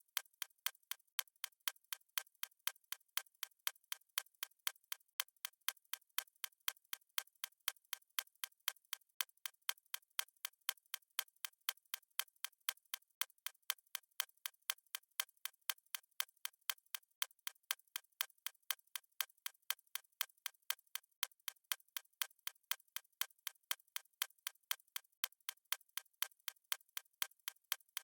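Countdown timer's clock-style ticking sound, even sharp ticks at about two a second, steady and unchanging.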